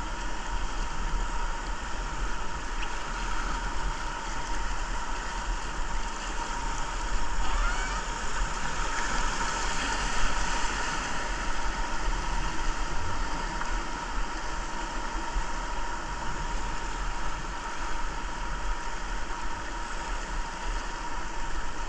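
Steady rushing of river whitewater, with a low flickering rumble of wind and handling noise on the GoPro's microphone.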